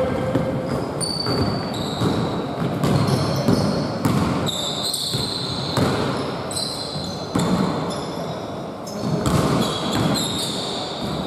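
Basketball game on a hardwood gym floor: the ball bouncing, players' footsteps and repeated short, high sneaker squeaks, echoing in the large hall.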